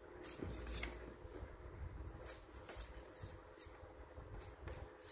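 Faint handling noise: a series of soft, scratchy rustles and light taps as a hand turns a metal landing-net handle over in the palm, over a low room hum.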